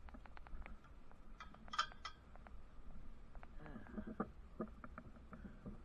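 Climbing hardware clicking and clinking lightly against a steel radio tower, with a short cluster of clinks about two seconds in, over a steady low wind rumble on the microphone.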